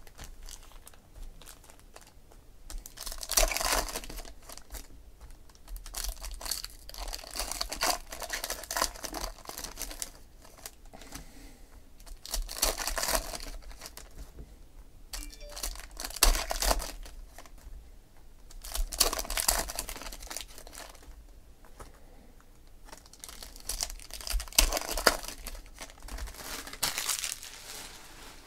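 Foil wrappers of Panini Select football card packs being torn open and crumpled by hand, in about six separate bouts of crinkling.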